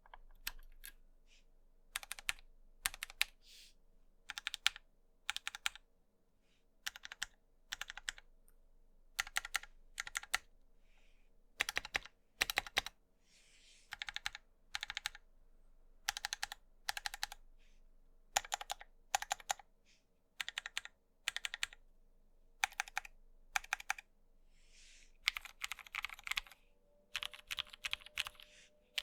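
Typing on a Hex.3C HHKB-layout mechanical keyboard with lubed Gateron Black Ink V2 linear switches, a POM plate and ABS keycaps: quick runs of keystroke clacks with short pauses between.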